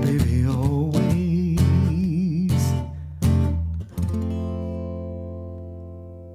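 Acoustic guitar music played through a PA: strummed chords under a wavering melody line, closing on a last chord about four seconds in that rings and slowly fades.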